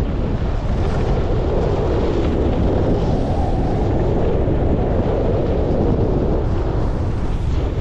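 Wind rushing over an action camera's microphone as a skier runs downhill at about 30–40 km/h: a loud, steady rushing noise.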